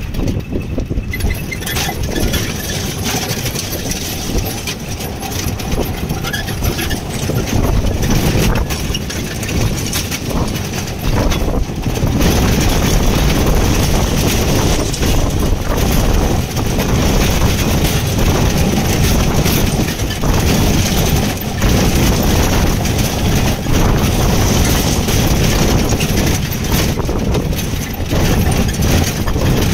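Wind buffeting the microphone: a loud, uneven low rumble with a hiss over it, surging and easing in gusts and growing louder about a third of the way in.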